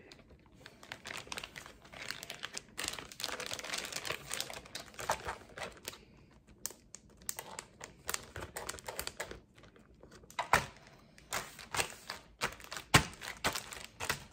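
Plastic zip-top bag crinkling and rustling as a raw pork chop is worked into it and smoothed flat. In the last few seconds come several separate knocks, a metal meat mallet starting to pound the bagged chop on a plastic cutting board.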